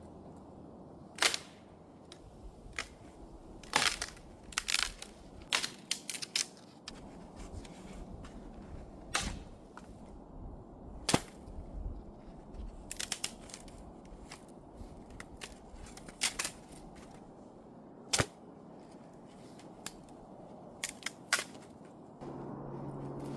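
Campfire crackling: sharp, irregular pops and snaps of burning wood over a low, steady rush.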